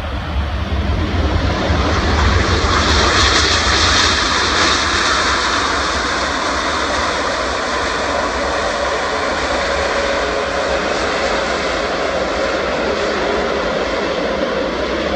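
Airbus A380-841's Rolls-Royce Trent 970 jet engines and rushing air as the airliner rolls out after touchdown. The noise swells to its loudest a few seconds in, then settles to a steady level.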